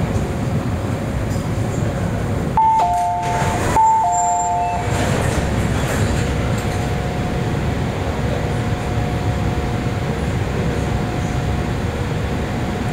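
Two-note chime of an MTR Adtranz-CAF train's door system, a high note falling to a lower one, sounded twice about two and a half seconds in as the doors open at the platform. Under it is the steady hum inside the stopped train car.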